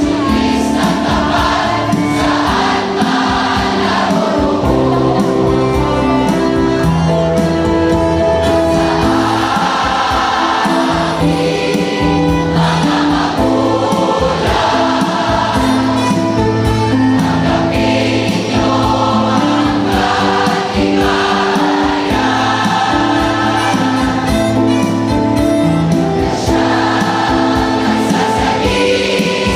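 A large mixed choir of graduates singing a slow song in several voice parts, with long held notes changing together in harmony.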